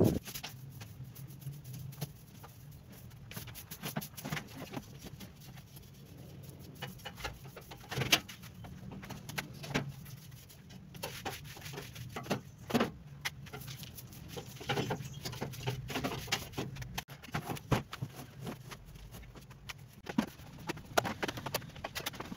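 Household cleaning noises: wooden bed boards shifted and knocked on a metal bed frame and a broom sweeping underneath, heard as scattered knocks, clicks and scrapes over a low steady hum.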